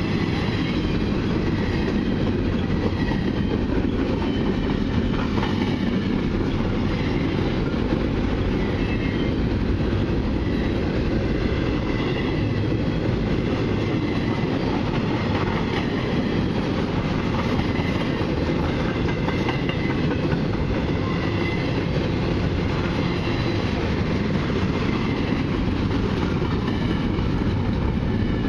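A long freight train of intermodal well cars, some carrying containers and some empty, passing at speed. Its steel wheels make a steady rumble and clatter over the rails.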